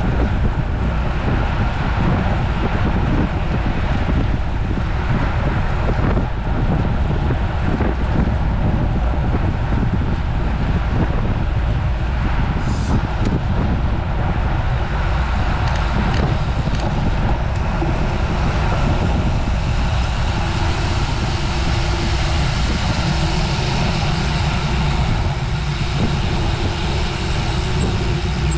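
Steady rush of wind over the microphone of a road bike moving at race speed, mixed with tyre and road noise. A faint steady hum joins about twenty seconds in.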